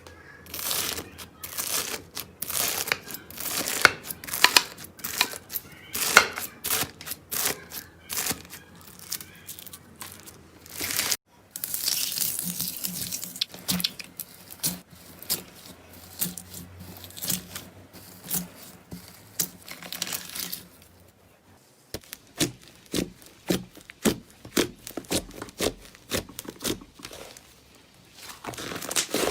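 Slime being squished and worked, making a rapid run of sticky clicks and pops. About 11 seconds in the sound cuts to a denser crackling, then returns to separate pops after a short lull.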